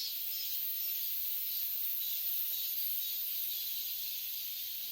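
A steady chorus of insects singing, heard as a continuous high hiss with a faint pulsing shimmer.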